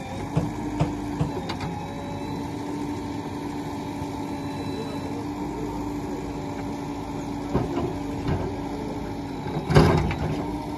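Diesel engines of a Sonalika tractor and a JCB 3DX backhoe loader running at a steady idle. A few short knocks and clanks break in, the loudest a little before the end.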